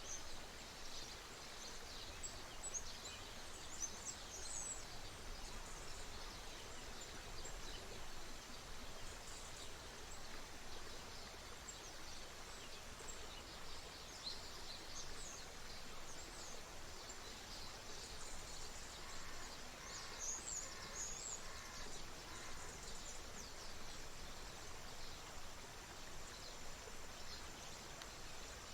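A stream running steadily, with many small birds chirping and singing in short high phrases throughout. About two-thirds of the way in, another bird gives a short series of lower repeated notes.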